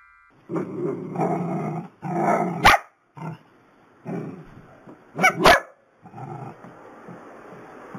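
Small long-haired dachshunds barking and growling in a string of bursts, with the sharpest, loudest barks a little before three seconds in and again after five seconds.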